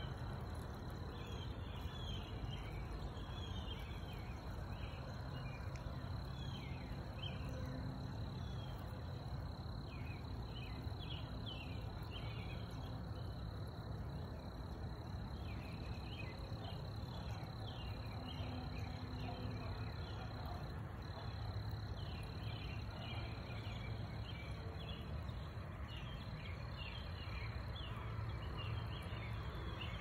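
Quiet outdoor ambience: a steady low rumble with a thin, steady high tone, and faint repeated chirping throughout.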